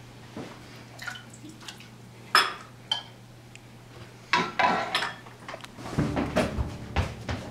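Metal spoons and a ladle clinking and scraping against ceramic bowls and a cooking pot, in a string of sharp clinks. Heavier knocks and scraping come near the end.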